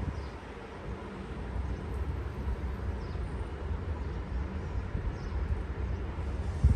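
Outdoor ambience: a low, fluctuating rumble with a brief louder swell near the end, and faint high chirps every second or two.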